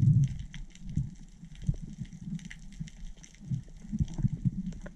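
Underwater sound picked up by a diver's GoPro: irregular low, muffled thumps and swells of water moving against the camera as the diver swims, with faint scattered crackling clicks throughout. The loudest thump comes right at the start.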